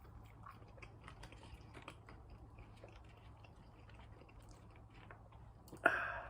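A person chewing food close to the microphone, with many small wet mouth clicks. A louder, short sound comes near the end.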